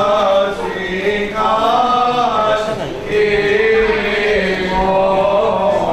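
Greek Orthodox Byzantine chant: male voices singing a slow, melismatic line of long-held, gliding notes, with a steady low note held beneath it from about three seconds in.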